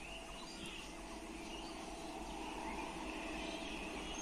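Faint birds chirping over open-country ambience, with the low hum of a distant approaching WAP7 electric locomotive and its train slowly growing louder.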